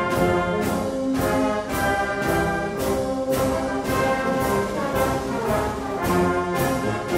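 Brass band music, trombones and horns over a steady drum beat of roughly two strokes a second.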